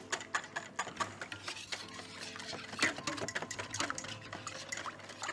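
Cream being whipped by hand with a wire balloon whisk in a stainless steel bowl, the wires clicking and scraping rapidly and unevenly against the metal. The cream is being whipped toward stiff peaks.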